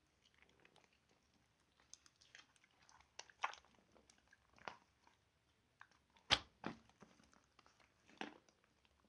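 Slime being squeezed and pressed by hand, giving irregular wet crackles and small pops, with the sharpest snap about six seconds in.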